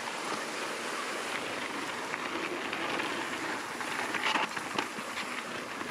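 Mountain bike rolling fast down a dry dirt trail: a steady rushing crunch of knobby tyres on dirt and gravel, with many small rattles and clicks from the bike.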